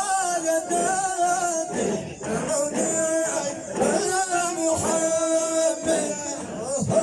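Male Sufi chanting: a devotional praise song sung in long, wavering held notes with short breaks between phrases.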